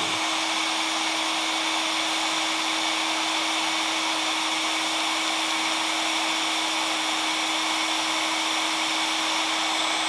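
Resanta FE-2000EKD heat gun running steadily on its second mode: an even rush of air from its fan with a constant low hum underneath.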